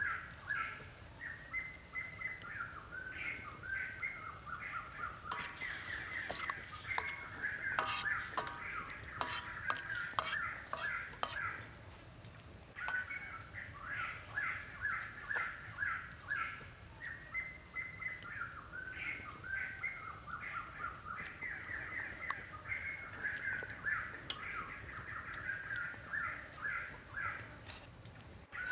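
Forest ambience: birds calling over and over with short repeated chirping notes, over a steady high-pitched insect drone. A run of sharp clicks and taps sounds between about six and eleven seconds in.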